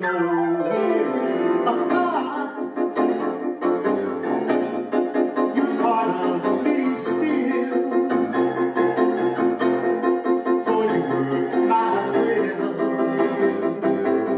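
Instrumental keyboard music: piano-like chords over a bass line. It opens just after a brief drop in level, with a falling sweep in the first second.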